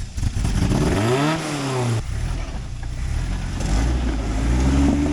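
Off-road 4x4's engine revving: its pitch climbs and falls over a couple of seconds and cuts off sharply, then builds again near the end.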